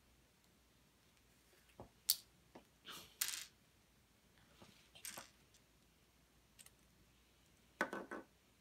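Plastic LEGO pieces being handled and fitted together: a few faint, sharp clicks and short rattles scattered through, with quiet rustling between.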